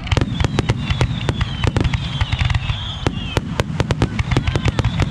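Fireworks display in a rapid barrage, about six sharp bangs a second from bursting shells over a continuous low rumble of reports.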